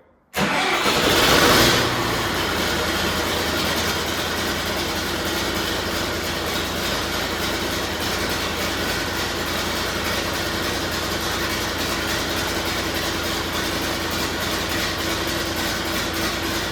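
John Deere 450C bulldozer's diesel engine starting: it catches almost at once, runs up loudly for a second or so, then settles into a steady idle.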